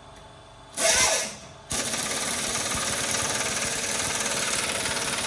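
Pneumatic impact wrench on an air hose: a short burst about a second in, then a steady rattling run of about four seconds as it drives in a skid-plate bolt.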